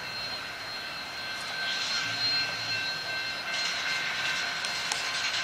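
Union Pacific 844, a 4-8-4 Northern-type steam locomotive, running at close range with a steady high whine and a hiss of steam. The hiss swells about two seconds in and grows louder again past the middle.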